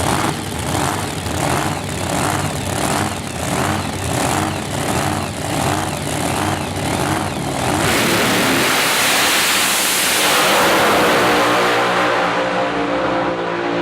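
Supercharged V8 drag coupe's engine idling with a slow, rhythmic lope, then about eight seconds in it goes to full throttle and runs hard for several seconds as the car launches, rising in pitch and losing its sharpness near the end as it pulls away.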